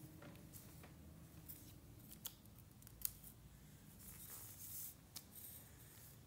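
Faint handling of cardboard jigsaw puzzle pieces on a stone floor: a few sharp clicks and taps as pieces are picked up and pressed together, and a brief scraping slide about four seconds in as an assembled section is pushed across the floor.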